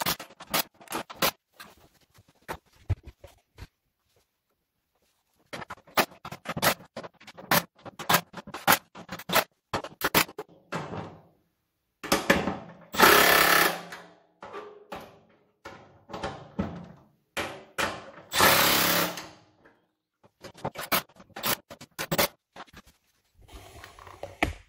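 A cordless impact driver runs in two short bursts, one about halfway through and one a few seconds later, driving bolts through the corner brackets of galvanized corrugated steel garden-bed panels. Between the bursts come many sharp clicks and taps of metal hardware and panels being handled.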